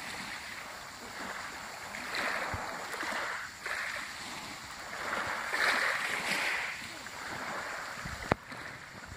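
Small sea waves lapping and washing on a pebble shore, swelling and fading every second or two. A single sharp click comes near the end.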